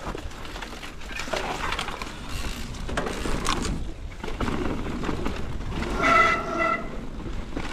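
Mountain bike rolling over a dirt trail and jump, then the brakes squealing, one short high squeal about six seconds in. The squeal comes from brakes that are cold after the bike sat for hours.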